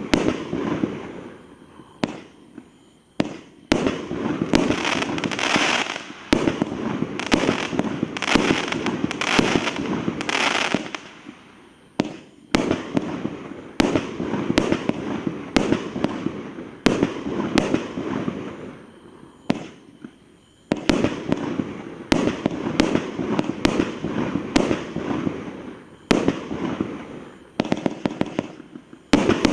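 Night Star King Kong 78-shot compound firework cake firing a rapid run of shots, often one or two a second. Each sharp report is trailed by the noisy fizz of its burst, with a few short lulls between volleys.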